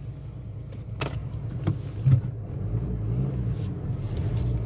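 Motor vehicle engine running while driving, its pitch rising and then easing off about three seconds in. A couple of clicks about a second in and a short thump about two seconds in.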